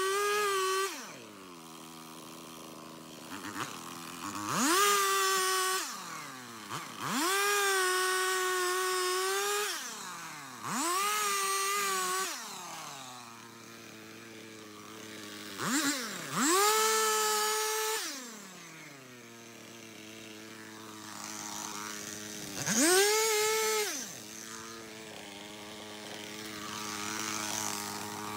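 Stihl two-stroke chainsaw revved to full throttle in short bursts of one to three seconds, about six times, dropping back to idle in between.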